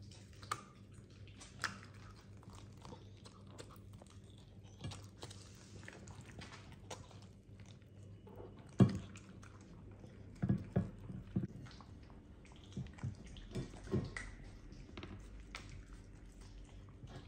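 Miniature dachshund chewing and crunching raw chicken on the bone, with wet bites and repeated crunches. The crunches come louder and closer together in the second half, the loudest a sharp crack about nine seconds in, over a faint steady low hum.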